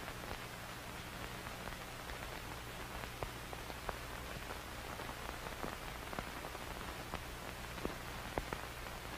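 Surface noise of an old optical film soundtrack: a steady hiss with scattered crackles and pops over a low hum.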